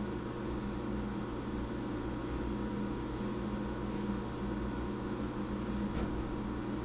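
Steady low hum of a Syil X7 CNC vertical milling machine standing idle, with no cutting under way.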